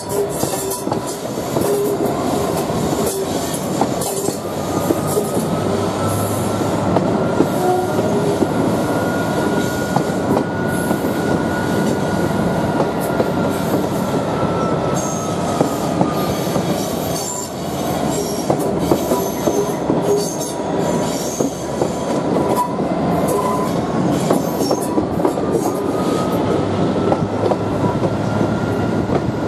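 Class 66 diesel locomotive pulling a train, its GM-EMD two-stroke V12 engine running under power, heard from a coach window close behind. A long, wavering wheel squeal from the curving track rises and falls over it, with rail clicks.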